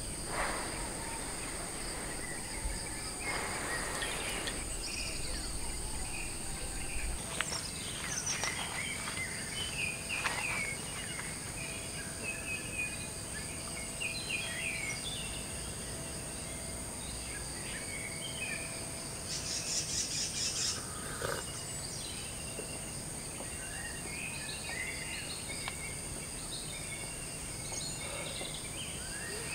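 Birds calling at dawn, with scattered short chirps and whistles and one brief fast trill about two-thirds of the way through, over a steady high-pitched drone of insects.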